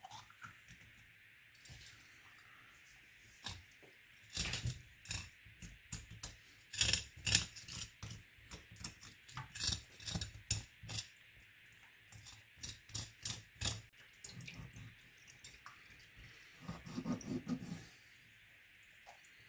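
Kitchen knife scraping and tapping irregularly against a gutted largescale blackfish on a wooden cutting board: a quick run of sharp clicks and scrapes, with a longer rubbing sound near the end.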